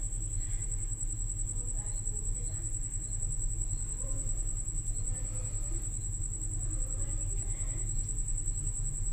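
A steady high-pitched whine over a low steady hum, with faint soft handling noises as chicken pieces are pushed onto a bamboo skewer.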